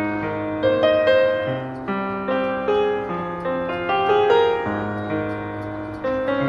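Background piano music: a gentle melody of struck notes over held bass notes.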